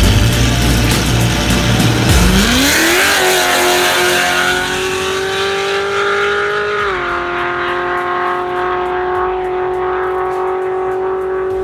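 C6 Corvette Z06's 7.0-litre LS7 V8 rumbling at the start line, then revving up as the car launches down the drag strip. Its pitch rises for about a second, holds, and drops briefly about seven seconds in. Music plays underneath.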